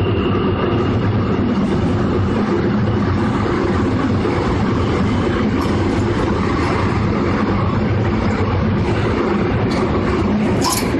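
Seoul Subway Line 5 electric train with an IGBT VVVF drive, heard from inside the car running steadily on the rails with a low rumble and hum. A faint high tone fades out in the first second, and brief high squeals come near the end.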